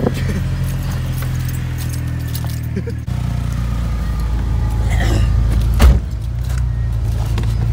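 Pickup truck engine running steadily, heard from inside the cab after a push start, as its starter is dead. The note changes slightly about three seconds in, and a sharp knock comes near six seconds.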